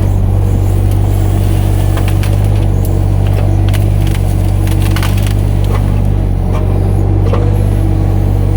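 Kato mini excavator's diesel engine running steadily under load, with wood cracking and splintering in sharp snaps scattered throughout as the machine breaks up brush and timber.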